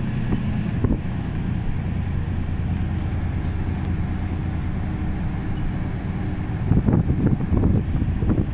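Inside a city bus on the move: a steady engine hum and road noise. Near the end comes a run of knocks and rattles.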